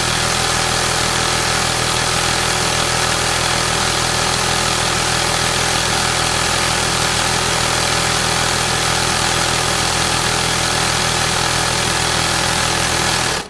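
Industrial sewing machine running steadily at constant speed, then stopping abruptly.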